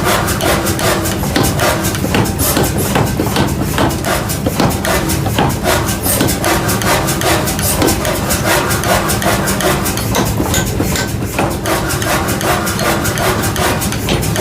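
Hammer blows on iron being forged, struck rapidly and evenly at about four or five a second throughout, over a steady low hum.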